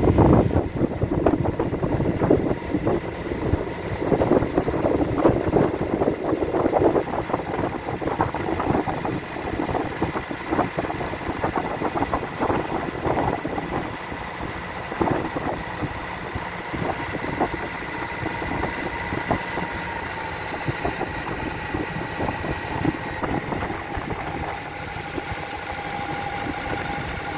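A boat's engine running under way, with a steady whine over rough splashing and wind noise that is heavier in the first half. Later the engine's pitch eases slightly lower and steadies as the boat slows alongside a moored trawler.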